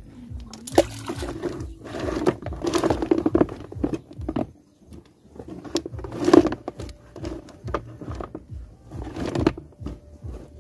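Seed mangrove clams being tossed by the handful from a plastic basket into shallow water: a few irregular bursts of splashing and plopping a couple of seconds apart, with shells scraping and rattling between them.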